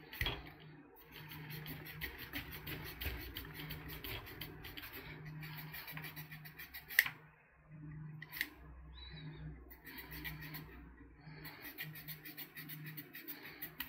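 Stainless-steel multitool knife blade sawing back and forth through parachute cord, a run of fine rasping strokes with a sharp click about seven seconds in and a short pause before the sawing resumes. The blade is not very sharp and struggles to cut the cord.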